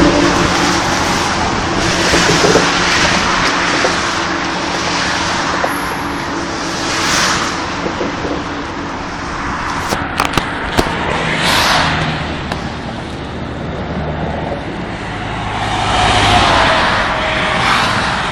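Motorway traffic on the bridge: cars and trucks passing close by one after another in swelling waves of tyre and engine noise. A few sharp clicks come about ten seconds in.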